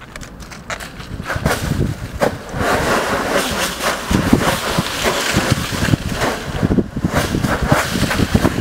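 Dry fallen leaves rustling and crunching as someone kicks and tramples through a deep leaf pile, growing louder about two and a half seconds in, with wind buffeting the microphone.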